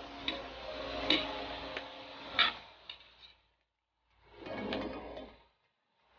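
A spatula knocking and scraping against a wok while asparagus and pork are stir-fried, several sharp clicks over a frying hiss. The sound drops out for a moment a little past the middle, then comes back briefly.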